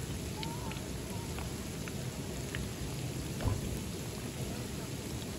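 Steady rushing noise of water, strongest in the low end, with scattered faint ticks and a short faint chirp about half a second in.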